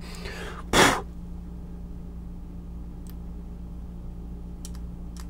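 Light scraping and faint ticks of a hobby knife working a mold seam on a plastic miniature part, over a steady low hum, with one short rush of noise about a second in.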